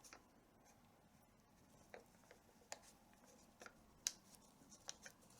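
Faint handling noise as a strap is threaded through a hole in the edging of a tabla skin: a handful of small, sharp clicks and light rubbing, spaced irregularly.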